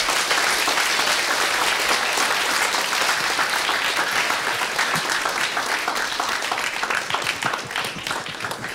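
Audience applauding, the clapping thinning out and growing quieter toward the end.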